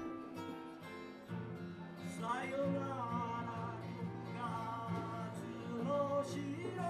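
Acoustic guitar played in a song interlude, with its low strings coming in about a second in, joined about two seconds in by a wordless melody line that glides and bends over the guitar.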